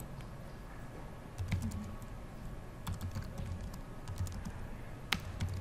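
Typing on a computer keyboard: a run of uneven key clicks that starts about a second and a half in.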